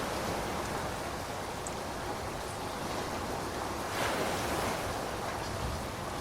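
Steady heavy rainfall, an even rushing hiss, that swells briefly about four seconds in.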